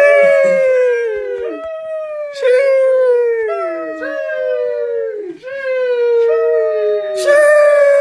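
The 'sheesh' meme sound effect: a voice drawing out a high 'sheeesh' that falls in pitch, looped over and over so the calls overlap, a new one starting about every second.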